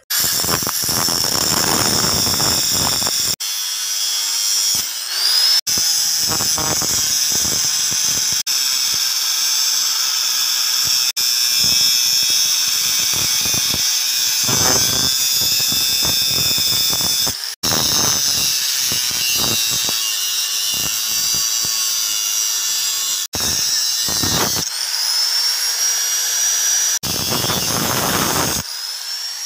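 Electric angle grinder with a thin cutting disc, whining at high speed as it cuts a knife blank out of steel with a grating sound. Twice the pitch rises as the motor spins back up to speed.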